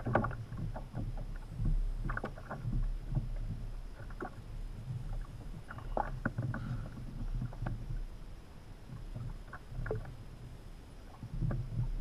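Water lapping and slapping against the hull of a Hobie Adventure Island sailing kayak, with scattered small knocks and clicks over a low rumble.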